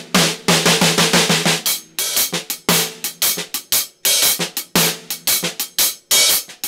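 Drum kit played in a half-time triplet shuffle groove: a steady hi-hat pattern with snare backbeats and quiet snare ghost notes between them.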